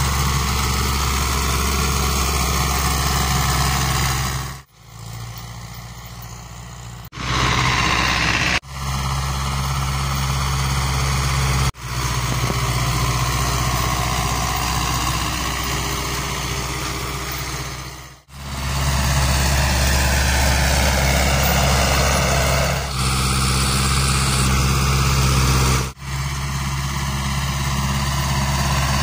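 Ursus C-360 tractor's four-cylinder diesel engine running hard under load at high revs while pulling a cultivator through ploughed soil. The steady engine sound breaks off and jumps in level several times where separate takes are cut together, with one quieter, more distant stretch a few seconds in.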